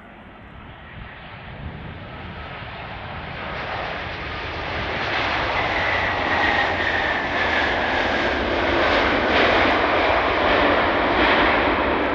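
Wide-body jet airliner landing, its engine noise growing steadily louder for about six seconds as it nears, then holding loud, with a whine gliding slowly downward.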